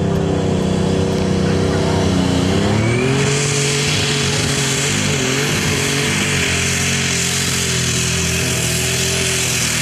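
Heavy super stock pulling tractor's turbocharged engine running under full load down the track, its pitch climbing about two and a half seconds in and then holding steady, with a high hiss coming in as it speeds up.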